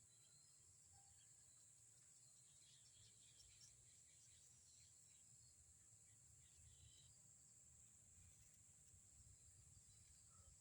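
Very faint outdoor ambience: a steady high-pitched insect drone, a few faint bird chirps, and a low fluttering rumble of wind.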